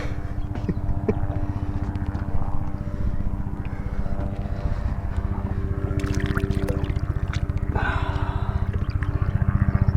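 A boat's outboard motor running steadily, with a fast even low pulse, and a few light clicks about six seconds in.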